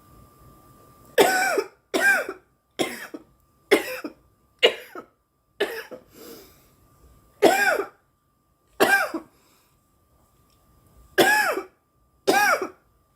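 A woman coughing hard from inhaling cannabis smoke: about ten short, voiced coughs starting about a second in, in clusters with a brief pause between the last two groups.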